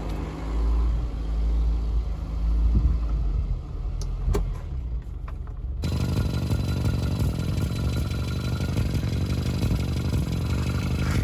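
Austin Metro engine just started and idling steadily. About six seconds in, the sound switches to the running engine heard close under the car by the exhaust, with a steady hiss of exhaust gas escaping from a blow at the front joint of the exhaust box, a spot already patched once.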